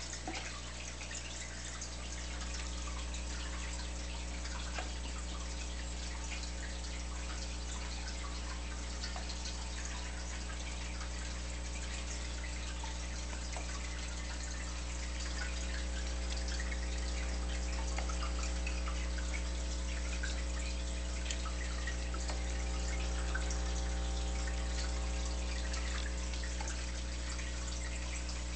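Home aquarium running: a steady fizz of air bubbles and trickling water from the tank's aeration and filter, over a low, steady hum.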